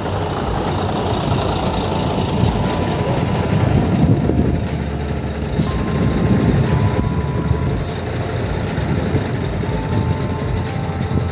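Heavy machine engine running steadily with a low rumble, swelling a little around four and six seconds in.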